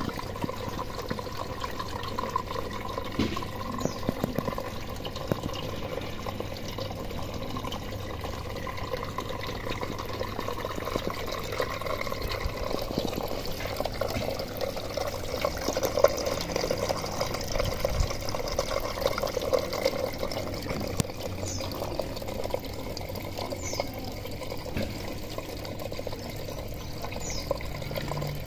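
Water trickling and splashing steadily: nutrient solution circulating through a hydroponic system's PVC pipes and draining into the channel below.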